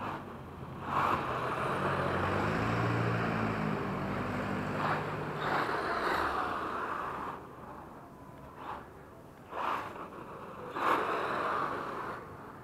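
HSP Brontosaurus Pro electric RC monster truck driving on pavement: its motor and tyres hiss in repeated surges as it speeds up and eases off, with quieter gaps between runs.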